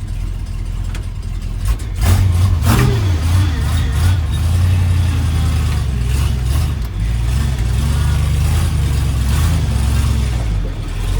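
1978 Ford F-350's 460 big-block V8 running, a low steady rumble. Two sharp knocks come about two seconds in, after which the engine sound grows louder and holds steady.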